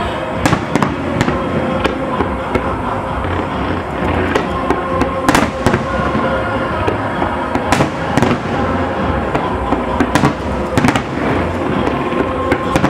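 Large display fireworks going off: aerial shells bursting with irregular sharp bangs, about a dozen in all, the loudest about five seconds in, over a continuous crackle and low rumble from many effects firing at once.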